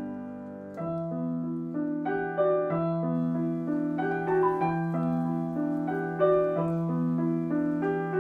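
Background piano music: a gentle, repeating pattern of notes over a low note that changes about every two seconds.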